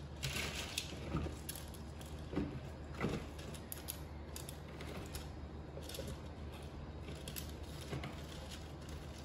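Expanded clay pebbles (LECA) clicking and rattling against each other and the glass jar as they are added and settled by hand around a plant's roots: scattered light clinks, a few sharper ones in the first three seconds.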